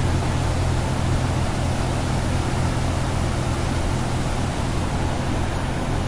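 A large waterfall's steady roar: a dense, even rush of falling water with a deep rumble underneath.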